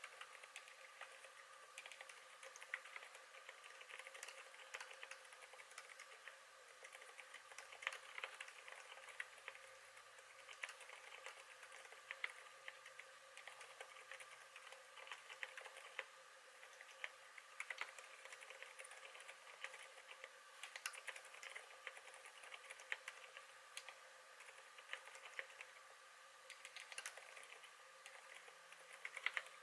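Continuous typing on a KBD8x MKII mechanical keyboard with lubed Zilent silent tactile switches: a steady run of soft, muffled keystrokes that are incredibly quiet.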